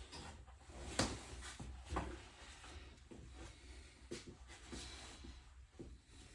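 Faint handling noises: scattered light knocks and clicks with soft rustling, the clearest knock about a second in and another about two seconds in.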